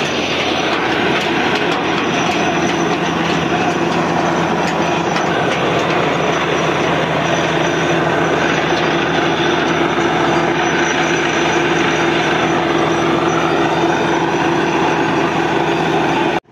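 Truck-mounted borewell drilling rig running while drilling a tubewell: a loud, steady mechanical din with a low hum that grows stronger about halfway through.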